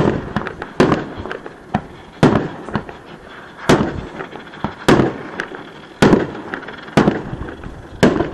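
Fireworks shells bursting in the sky, about nine sharp bangs roughly one a second, each trailing off.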